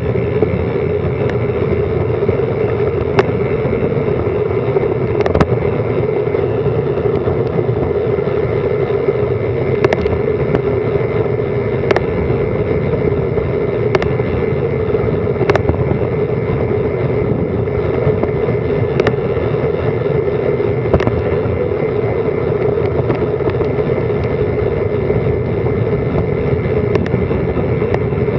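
Steady rush of wind and road noise on a bicycle-mounted action camera during a fast downhill descent, with occasional sharp clicks every couple of seconds.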